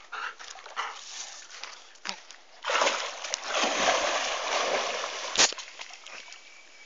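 Water splashing from a swimming German shepherd: a few small splashes, then about three seconds of heavy splashing from a little before the three-second mark, ending in one sharp smack.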